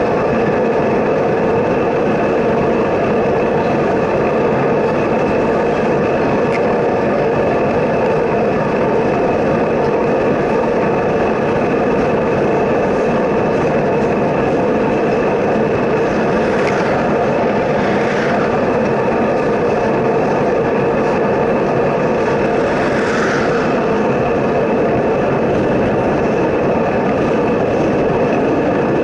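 Steady rolling rumble of a long freight train of hopper cars on the track alongside, mixed with wind and road noise from the moving bicycle. Three brief swells in the upper range come a little past the middle.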